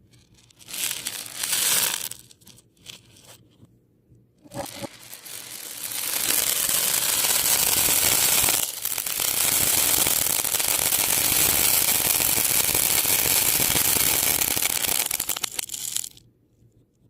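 Crystal beads being handled, a dense crackle of many small pieces clicking and rubbing together. A few short bursts come first, then a long steady rush from about six seconds in that stops about sixteen seconds in.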